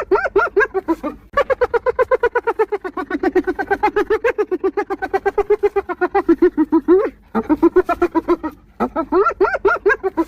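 Spotted hyena laughing: long runs of rapid, high yelping notes, several a second, wavering up and down in pitch, broken by brief pauses about a second in and twice more near the end.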